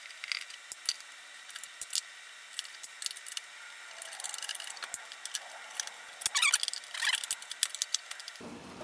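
Small clicks and taps of a screwdriver and hands on an e-bike's plastic battery cover as its screws are backed out. There are two short runs of rapid ticking in the second half.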